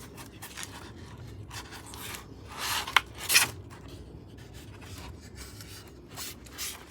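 Rubbing and scraping as rifle parts are handled and pulled from styrofoam packing, with a few short strokes and two louder scrapes about three seconds in.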